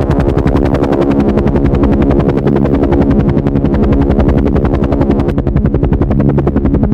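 Helicopter running steadily: the rotor blades chop in a fast, even rhythm over a constant engine hum. It is loud throughout.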